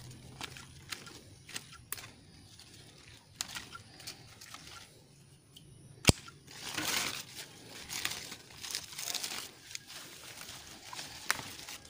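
Bypass pruning shears closing through a grapevine cane with one sharp snip about halfway through, a pruning cut, amid rustling of grape leaves and small clicks as the vine is handled.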